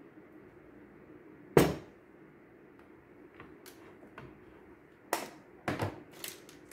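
Glass jar handled on a digital kitchen scale: one sharp knock about one and a half seconds in, then a run of light clicks and knocks near the end as the jar is picked up and moved, over a faint steady hum.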